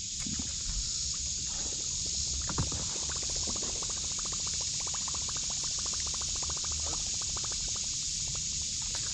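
Fishing reel being cranked in, a rapid run of small clicks from about three seconds in until near the end, over a steady high chirring of insects.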